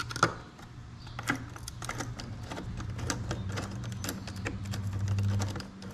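Flathead screwdriver turning the screw of the metal hose clamp on a rubber air intake tube, loosening it in a run of quick, irregular light clicks.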